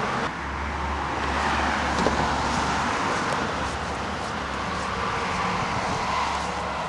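Road traffic noise: a steady low rumble with a broad hiss that swells about a second and a half in and again near the end.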